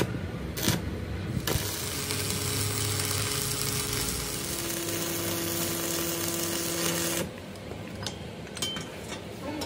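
Stick arc welding on the seam of a rolled steel wheel-rim band: after a few clicks, the arc catches about a second and a half in and crackles steadily with a faint hum under it for about six seconds, then stops suddenly.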